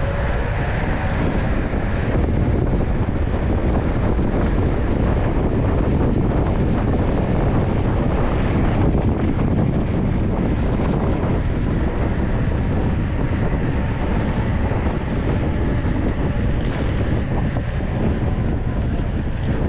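Wind rushing over the microphone of a camera on a moving mountain bike, a steady, loud low rumble.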